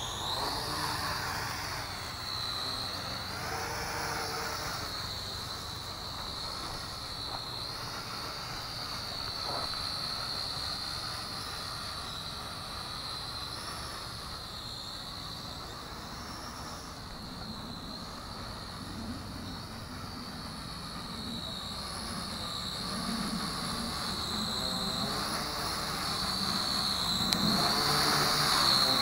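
JJRC H12C toy quadcopter's small motors and propellers flying, a steady high whine that wavers in pitch. It grows louder near the end as the drone comes closer.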